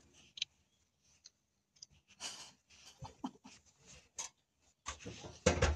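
Quiet breathing with small clicks and rustles close to a phone's microphone. There is a louder breathy rustle about two seconds in and another near the end.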